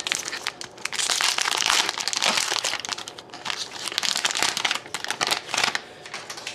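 Foil trading-card pack wrapper being torn open and crinkled by hand: a dense crackling rustle in several bursts.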